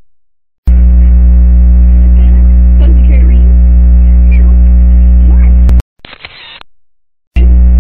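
Loud electrical mains hum with many steady overtones, faint voices audible beneath it. It starts abruptly under a second in, cuts out suddenly about six seconds in with a short quieter sound in the gap, and returns just as suddenly about a second and a half later.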